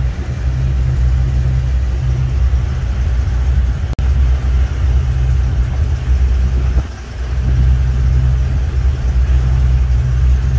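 The Birchwood 22 river cruiser's engine running steadily under way at cruising speed, a deep, even hum heard from inside the cabin. The sound breaks off for an instant about four seconds in and dips briefly about seven seconds in.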